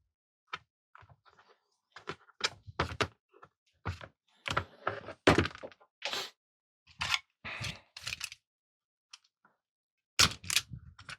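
Tools and parts being handled on a workbench: a string of irregular knocks, taps and clatters, thickest in the middle and again near the end.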